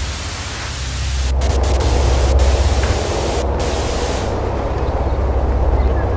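Television static hiss, with a few brief cut-outs, over a steady deep rumble; the hiss fades out about four seconds in, leaving the rumble.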